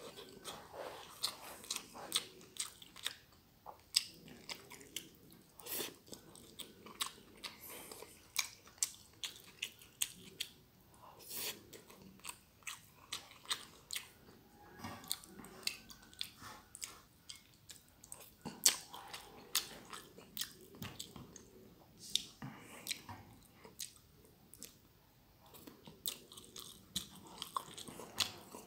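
Close-miked chewing of stir-fried glass noodles: wet mouth sounds with many sharp, irregular smacking clicks.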